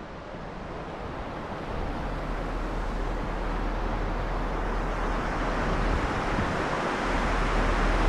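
Wind buffeting the camera's microphone: a steady rushing noise with a deep rumble, growing gradually louder.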